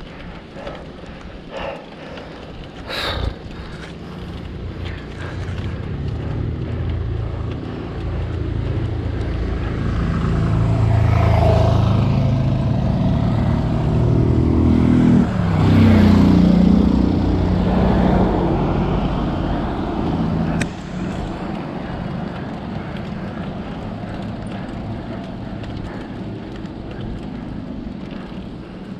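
A motor vehicle's engine passing close on the road, growing louder to a peak about halfway through, then falling away.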